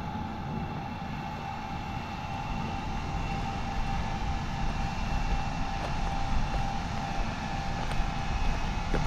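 Tractor engine running steadily under load, with a steady whine over a low rumble.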